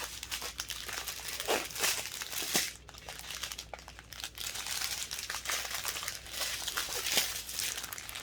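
Small plastic bags of diamond painting drills crinkling as they are handled and sorted, an irregular run of rustles.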